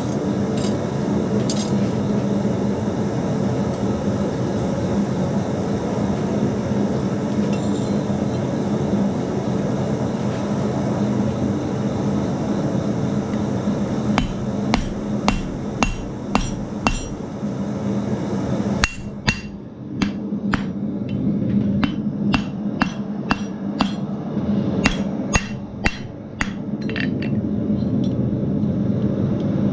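A steady hum, then from about halfway a long run of hammer blows on hot steel over an anvil, roughly two a second with ringing clinks, as the end of a strap hinge is drawn out to a point.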